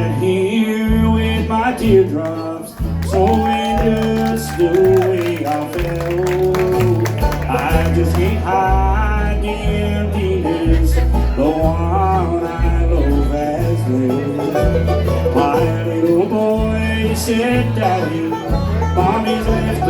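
Bluegrass band playing an instrumental intro: banjo and guitar with a melody line over a bass that steps back and forth between two notes in a steady rhythm.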